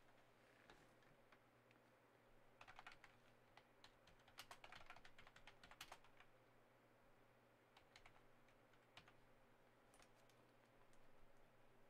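Faint typing on a computer keyboard: a short run of keystrokes about three seconds in, a longer run around five seconds in, then a few scattered single clicks.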